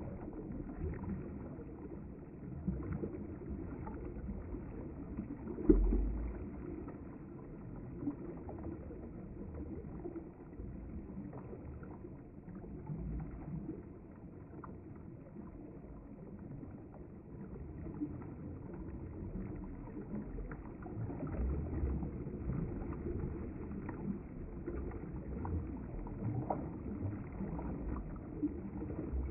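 River water flowing and lapping at the bank: a low, steady rush with scattered small ticks, and a dull thump about six seconds in.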